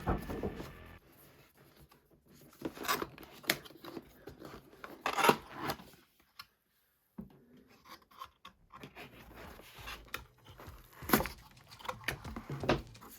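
Product packaging being handled and opened by hand: scattered rustling, scraping and tearing with sharp clicks and taps, broken by a second of dead silence about halfway through.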